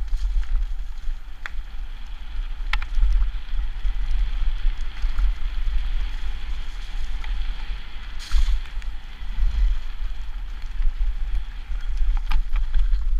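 Mountain bike rolling fast down a dirt forest trail, with wind buffeting the microphone in a steady heavy rumble, tyre hiss, and a few sharp knocks and rattles from the bike over bumps.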